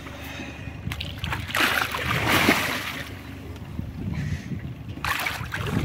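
A wels catfish over two metres long thrashing at the water's surface beside a boat, with a loud burst of splashing about a second and a half in and another shorter one near the end. Wind rumbles on the microphone.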